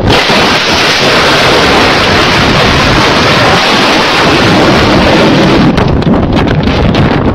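Loud roar of wind rushing over the microphone, starting abruptly and holding steady with a deep rumble underneath; from about six seconds in, a quick run of crackles and knocks joins it.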